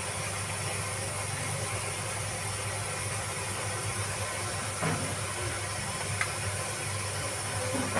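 Steady hiss with a low hum underneath, from rice steaming in a pot on the stove, with a faint knock about five seconds in.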